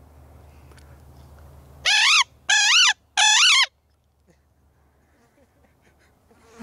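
Hand-blown coyote howl imitation: three short, loud yip-howls in quick succession, each wavering up and down in pitch, made close to the microphone to call in coyotes.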